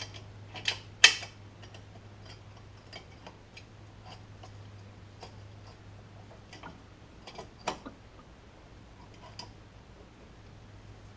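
Small metallic clicks and taps from handling C3 Corvette parking-brake hardware: the brake shoe, its retaining spring and pin, and the wire holding the pin. Two sharp clicks come about a second in and another near eight seconds, with lighter ticks between, over a faint steady hum.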